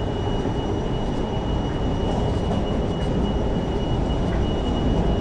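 Steady rumble and hiss of a passenger vehicle's interior in motion, strongest at the low end, with a faint thin steady whine above it.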